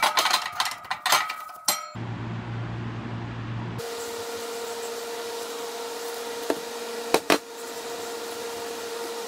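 Aerosol spray can hissing steadily as paint is sprayed, for roughly the last five or six seconds, with two or three sharp clicks partway through. Before that come a couple of seconds of clattering clicks and knocks from handling the part, then a brief low hum.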